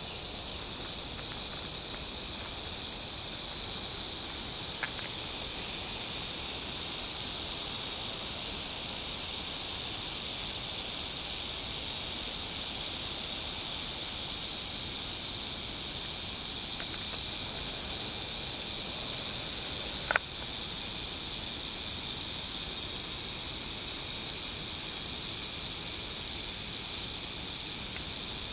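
Northern Pacific rattlesnake rattling its tail in a steady, unbroken high buzz, the warning of a coiled, defensive snake. A sharp click about twenty seconds in.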